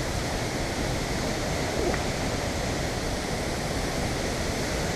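Steady rushing roar of the Reekie Linn waterfall on the River Isla, pouring into the gorge.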